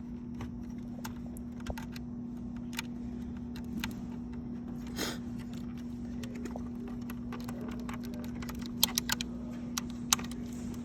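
Plastic wiring connectors on a control panel being unplugged, handled and pushed back into place: scattered small clicks and rattles, with a quick run of louder clicks near the end. A steady low hum runs underneath.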